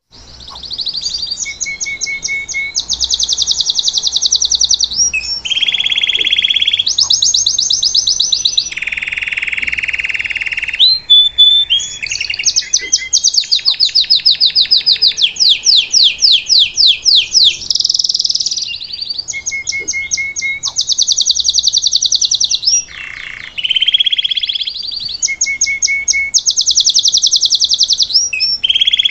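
Green domestic canary (a 'salsa' Belgian canary) singing a continuous song of rapid trills, switching every second or two between very fast high rolls and lower, slower ones.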